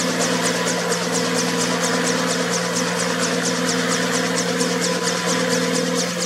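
Bell 47G2 helicopter with a 260 hp Lycoming engine running steadily on the ground, main rotor turning. A steady engine drone is topped by an even, rhythmic high-pitched swish, about five a second.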